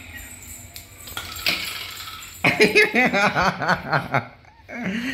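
A burst of laughter about halfway through: a quick run of short laughs, each rising and falling in pitch, after some light clinking.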